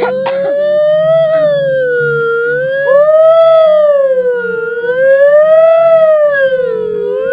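A voice imitating an ambulance siren: one long, loud wail that rises and falls in slow sweeps about three times, with a brief break about three seconds in.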